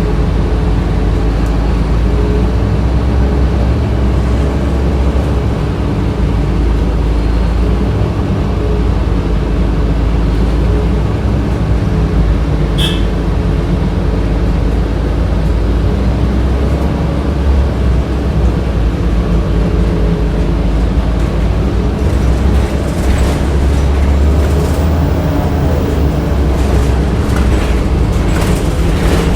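Inside a 2007 Orion VII city bus on the move: the steady drone of its HVAC system and drivetrain over a low road rumble, holding several steady tones. A short sharp sound comes about 13 s in, and clicks and knocks, the rattles of the body over the road, come in the last several seconds.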